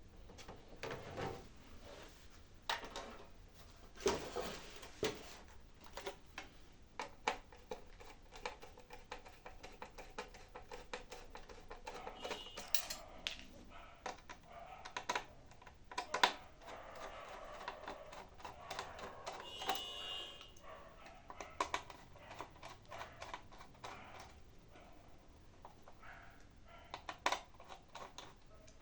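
Irregular light clicks, taps and scrapes as a hard disk drive and the DVR's casing are handled and positioned by hand.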